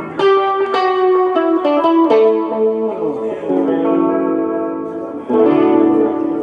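Electric guitar playing a melodic line through effects, with notes sliding down in pitch about three seconds in and a new strongly struck note a little after five seconds.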